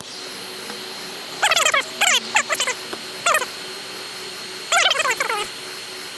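Heat gun blowing steadily with a faint high whine while it softens the adhesive under a cracked iPad screen. Over it come loud, high, quickly sweeping chirps in three short bursts, the first about a second and a half in and the last near the end.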